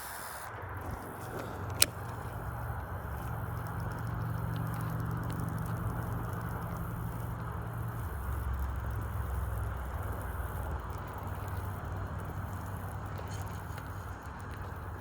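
Low steady hum of a motor vehicle engine, dropping in pitch about eight seconds in, over a steady rushing background. A single sharp click comes about two seconds in.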